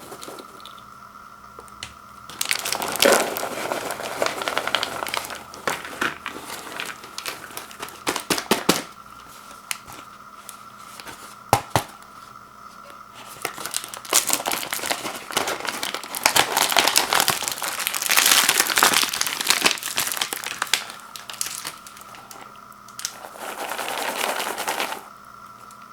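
Plastic wrapping of microwave popcorn mini bags crinkling as it is handled and pulled open, in several bursts with a few sharp clicks between them.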